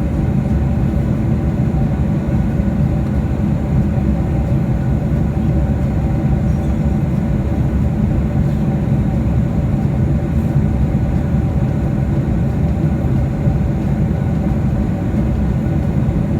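Steady engine drone heard inside a passenger airliner's cabin: an even low rumble with a few faint steady tones above it.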